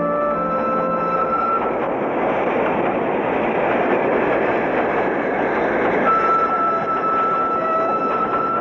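Steam locomotive at a station: a steady rush of steam and running noise, with one held high tone over the last couple of seconds. Brass music fades out in the first second or so.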